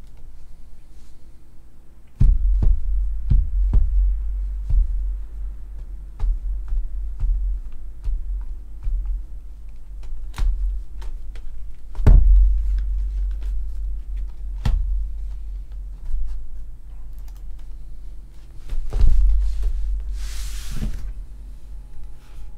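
Shrink-wrapped cardboard trading-card boxes being handled and restacked on a table: scattered clicks and knocks, with heavy low thuds as boxes are lifted and set down, and a brief swish near the end.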